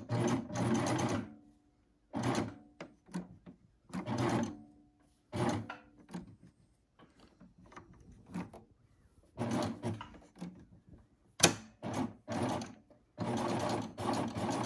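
Baby Lock Triumph serger stitching a 3-thread narrow serge with the differential feed set to gather, run in short stop-start bursts of half a second to a second. A single sharp click comes about three quarters of the way through.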